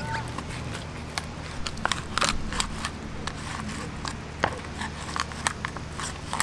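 Fillet knife skinning a tautog fillet on a plastic cutting board: a string of irregular small clicks and scrapes as the blade works between skin and meat against the board.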